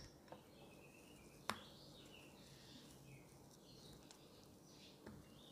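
Near silence with faint soft squelches and one light click about a second and a half in: a silicone spatula mixing mashed potato in a glass dish.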